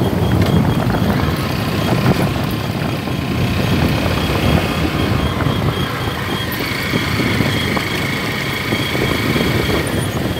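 Motorcycle engine running steadily as it rides along a dirt road.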